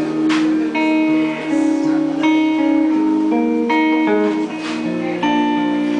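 Live band playing the instrumental intro of a slow ballad, led by strummed guitar chords that change every second or so.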